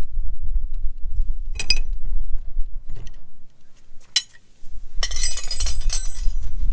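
Metal parts and tools clinking against each other during hose bibb repair work: a ringing clink about a second and a half in, another around four seconds, then a quick flurry of clinks near the end, over a constant low rumble.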